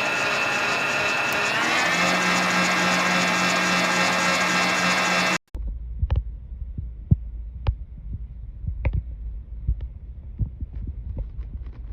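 HOWORK 660 W stand mixer's motor running with a steady whine, stepping up in pitch about two seconds in as the speed is raised. It cuts off abruptly about five seconds in, leaving a low rumble with scattered soft knocks.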